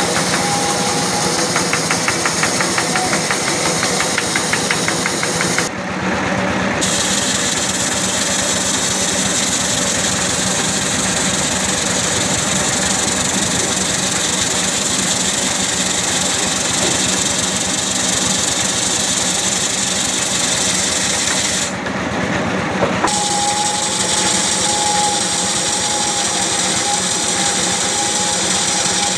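Home-built lathe running steadily as it turns a coconut-wood (glugu) pole, a continuous engine-like drone with a hissing edge. The sound dips briefly twice, about six seconds in and again a little past twenty seconds, and a steady whine comes in over the drone after the second dip.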